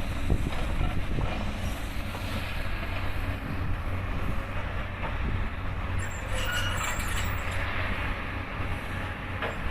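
Steady low rumble of heavy machinery, with a brief higher-pitched squeal about six seconds in.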